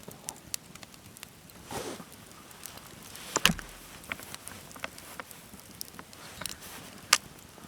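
Dry kindling and firewood snapping and knocking as a small campfire is laid: scattered light clicks and snaps, with two sharper cracks about three and a half seconds in and near the end.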